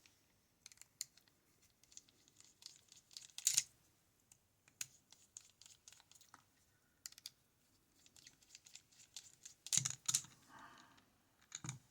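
Small scattered metal clicks and scrapes from a disassembled West 917 high-pin-count lock being handled with tools, as it is worked on to reach pins dropped into the keyway. A louder cluster of knocks and rustling comes about ten seconds in.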